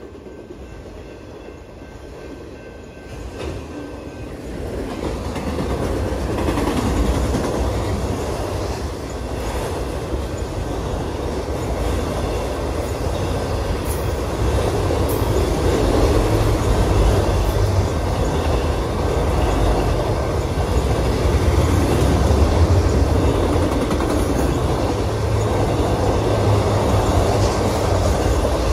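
Freight train of autorack cars rolling past, steel wheels running on the rail with a heavy steady rumble. It grows louder over the first several seconds, then holds.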